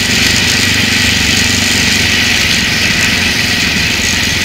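Adventure motorcycle engine running steadily while riding, with a constant rush of wind noise.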